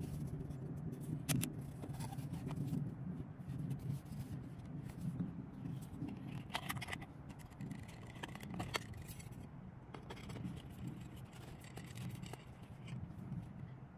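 Small wooden pocket pochade box being handled: a few sharp clicks and light scrapes as the latch, lid and sliding panels are worked. A steady low rumble lies under it.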